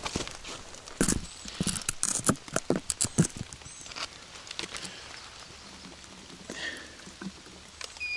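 Footsteps and handling knocks in wet leaf litter for a couple of seconds, then quieter rustling. Near the end comes a short, high electronic beep as an orienteering control's electronic punch registers.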